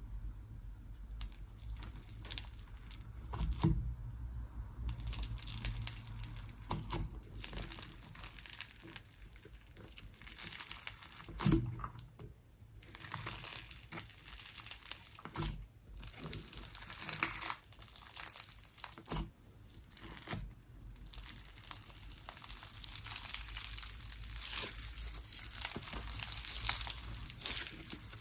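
Slime being handled, squeezed and stretched by hand: irregular crackling, clicking and squishing. The crackling grows busier in the second half.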